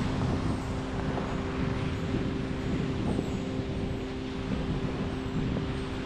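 Wind buffeting the camera microphone, a rough, gusty rumble, with a steady low hum underneath.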